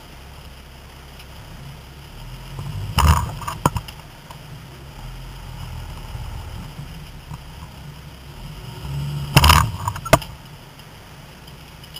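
A vehicle engine idles with a steady low hum. Loud sudden knocks and clatter break in about three seconds in, and again, louder, about nine and a half to ten seconds in.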